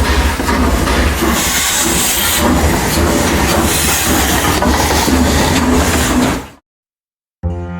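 Train running with a steady low rumble and rail clatter, which cuts off suddenly about six and a half seconds in. After a brief silence, music starts near the end.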